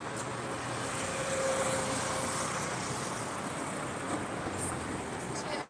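Steady outdoor background noise with a traffic hum, and a faint held tone between about one and two seconds in.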